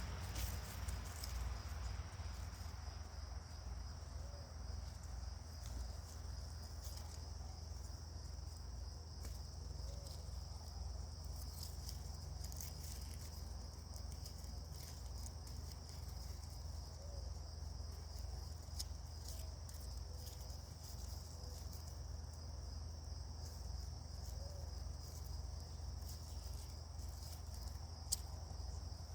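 An insect, most like a cricket, trilling steadily in a high, finely pulsing buzz, over a constant low rumble. A few faint clicks, with one sharper click near the end.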